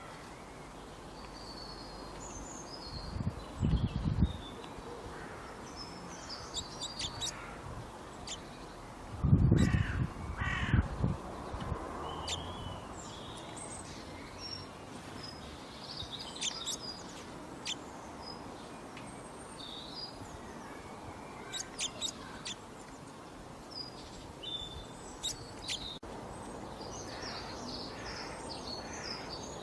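Outdoor ambience of many birds chirping and calling over a steady background hiss, with cawing calls in the mix. Two loud low rumbles stand out, one about three to four seconds in and a longer one around nine to eleven seconds.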